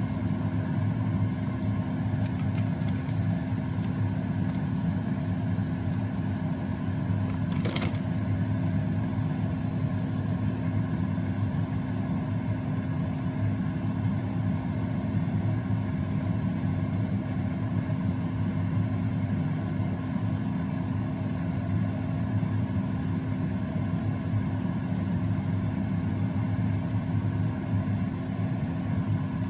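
Steady machine hum of a running kitchen appliance motor or fan, holding one low even tone, with a light click about eight seconds in.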